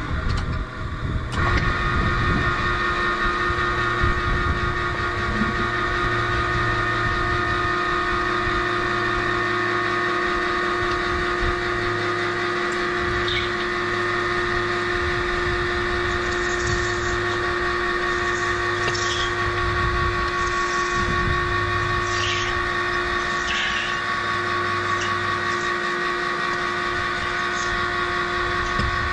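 Center pivot irrigation tower's drive motor and wheel gearbox kicking in about a second in, then running with a steady whine and grinding as the mud-caked tire churns in its rut: the gearbox has failed.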